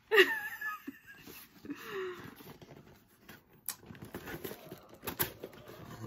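A woman's high-pitched, wheezing laughter bursts out at the start and trails off over a couple of seconds. It is followed by quieter rustling and handling of a cardboard mailer box being opened, with two sharp knocks, as a boxed figure in bubble wrap is pulled out.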